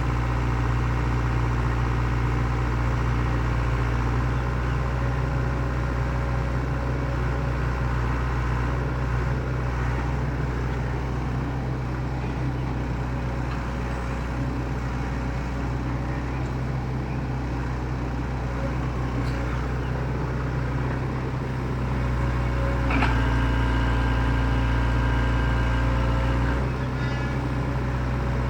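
Excavator diesel engine running steadily. Near the end it turns louder for about four seconds, with higher steady tones added, before settling back.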